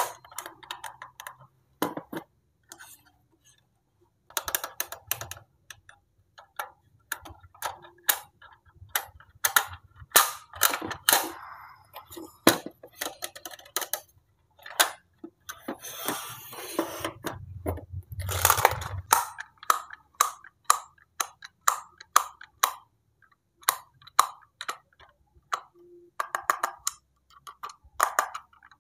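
Hard plastic biting-animal toys handled by hand: an uneven string of clicks, taps and snaps as their teeth are pressed and their jaws opened and closed. About two-thirds of the way in there is a longer stretch of rattling and scraping.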